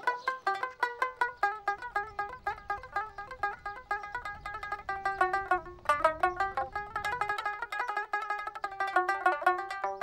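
Background music: a plucked string instrument playing a quick, busy run of notes, with a short break about six seconds in.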